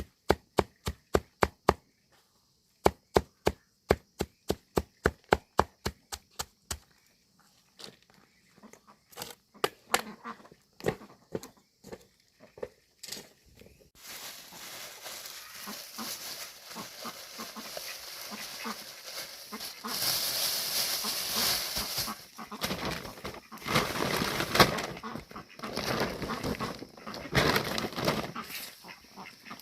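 Rapid, even chopping with a blade on a board, about three strokes a second, stopping after about seven seconds and followed by a few scattered knocks. From about halfway a steady noisy farmyard background sets in with farm animals calling, louder near the end.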